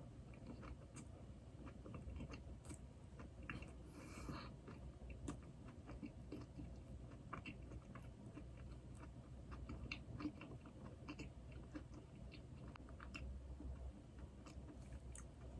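Faint, close-miked chewing of glazed doughnuts, with many small wet mouth clicks. A short rustling noise comes about four seconds in.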